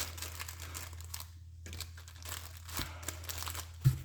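Paper and fabric craft scraps rustling and crinkling as they are handled and stacked by hand, with one sharp knock near the end.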